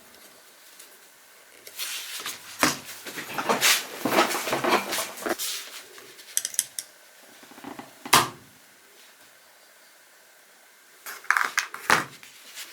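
Hard parts of an LED security-light fixture clattering and clicking as it is handled and opened. A run of this lasts a few seconds, then comes a single sharp knock, and a short clatter near the end.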